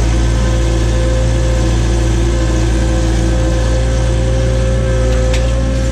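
John Deere skid steer's diesel engine running steadily, with a steady whine over a deep rumble and a single click about five seconds in.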